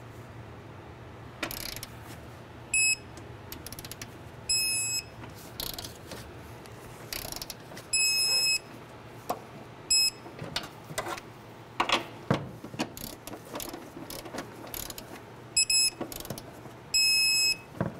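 Digital torque wrench ratcheting as it tightens the strut's top mount nuts. The clicks are broken by high electronic beeps, some short and some longer, in three groups: the wrench signalling that each nut has reached its set torque of 32 foot-pounds.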